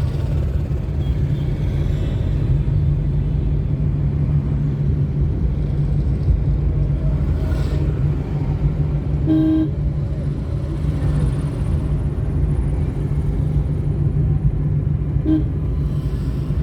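Steady low rumble of road traffic, with a short horn toot about halfway through and another brief one near the end.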